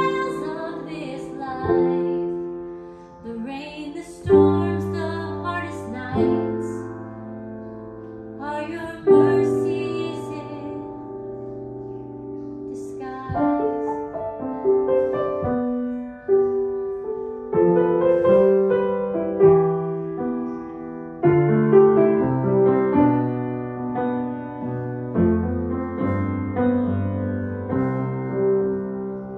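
A woman singing over a grand piano for about the first ten seconds, then the grand piano alone playing chords to close the song.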